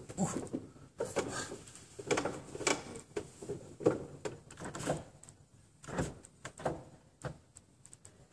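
Scattered knocks, clicks and rubbing as a player moves about at a wooden organ console and bench, with no notes played yet.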